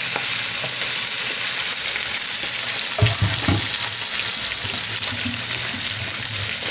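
Whole shell-on shrimp frying in hot oil in a pan, a steady sizzle, with a few dull low knocks about three seconds in.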